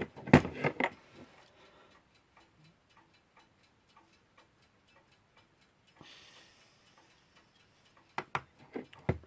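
Faint, rapid, even ticking of a mechanical clock, with a few sharper clicks and knocks from handling the clock movement and tools just after the start and near the end.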